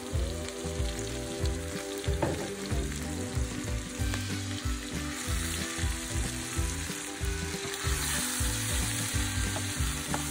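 Meat strips and sliced peppers frying in a steel pan, sizzling as tomato-basil sauce is poured in and stirred through with a wooden spatula. The sizzle grows brighter about halfway through.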